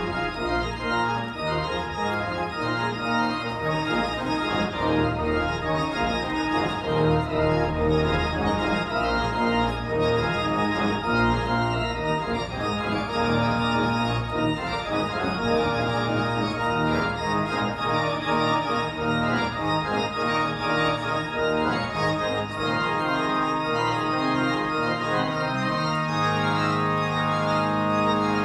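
Diego Cera Orgelbouw pipe organ being played: a busy passage of many sustained pipe notes changing quickly, settling about 26 seconds in into a long held chord.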